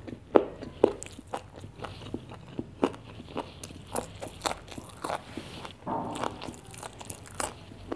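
Close-miked chewing and biting of a chicken zinger burger: irregular crunchy clicks and wet mouth sounds, a couple each second.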